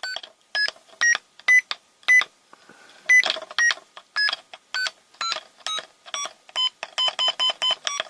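Arduino-driven piezoelectric disk beeping short, buzzy tones of do-re-mi scale notes, one per keypad press, at varying pitches about two to three a second. Near the end one note is repeated quickly five times.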